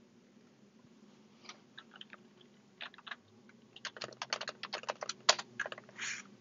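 Computer keyboard keys clicking while a login is typed into a Chromebox: a few scattered keystrokes, then a quick run of keystrokes over the last couple of seconds.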